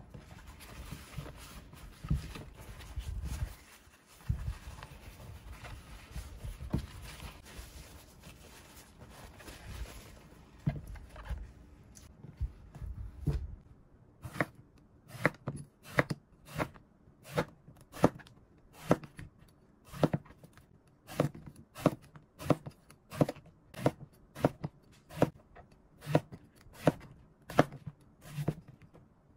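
Knife slicing through whole eggplants onto a wooden cutting board: a regular cut-and-knock about every 0.7 seconds through the second half. Before that come quieter, irregular handling and rustling noises.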